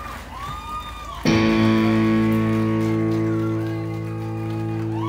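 Live rock band opening a song. About a second in, guitar and bass strike a chord together and let it ring, slowly fading.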